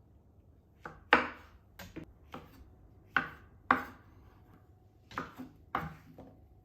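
Kitchen knife chopping on a cutting board: about ten sharp knocks at an uneven pace, some in quick pairs.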